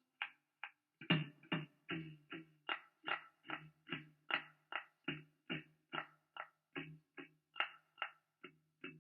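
Electric guitar, a Fender Stratocaster, picked in short staccato notes, about four a second. The notes repeat on much the same pitch and start after a brief pause about a second in.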